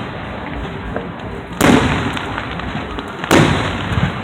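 Two aerial firework shells bursting about a second and a half apart, each a sharp boom that trails off in a rumble, over steady background noise.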